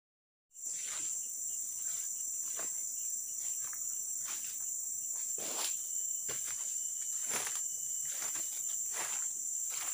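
A steady, high-pitched chorus of insects starts about half a second in, with footsteps rustling through leaf litter and undergrowth roughly once a second.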